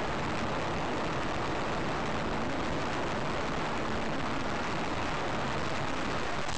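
Steady road noise inside a car's cabin driving at highway speed.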